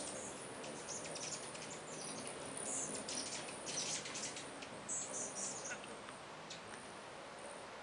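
Many hummingbirds at a feeder chipping and twittering in quick, high-pitched bursts, thickest through the middle of the stretch and thinning near the end.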